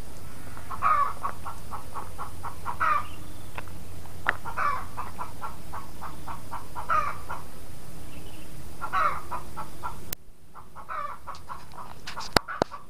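Chickens clucking: a steady run of quick clucks with a louder call about every two seconds. The background hum drops away abruptly about ten seconds in, and two sharp clicks follow near the end.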